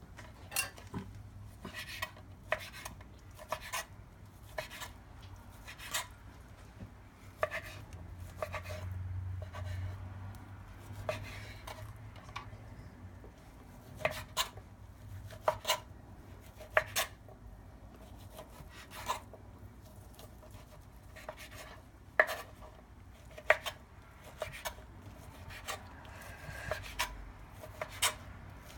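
Kitchen knife chopping grilled chicken on a cutting board: irregular sharp knocks of the blade against the board, about one or two a second.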